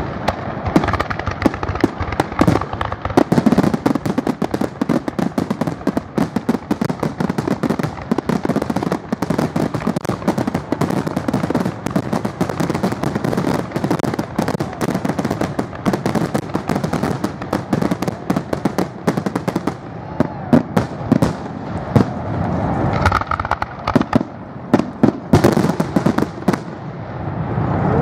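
Aerial fireworks shells bursting overhead in quick succession, dense bangs and crackling that thin out in the last few seconds.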